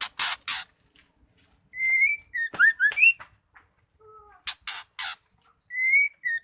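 Female white-rumped shama singing: three short harsh rasps followed by a clear whistled phrase of a held note, quick down-slurred notes and a rising note, and the whole pattern repeated once.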